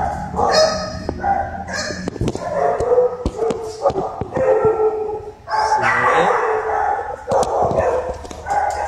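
Excited dogs barking, yipping and whining in quick, repeated calls, with a few sharp clicks mixed in.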